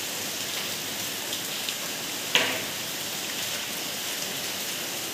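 Steady hiss of background noise with no pitch to it, and a single sharp tap about halfway through.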